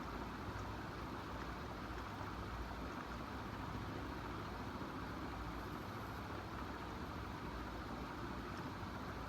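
Steady background noise: an even hum and hiss that does not change, with a few faint ticks.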